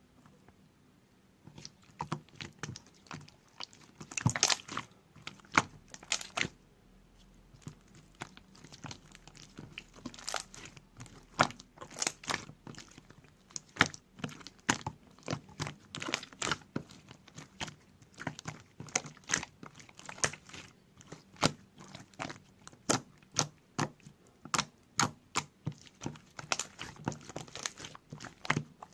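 Slime being squeezed and pressed by hand, making irregular sharp pops and crackles, several a second, that start about a second and a half in.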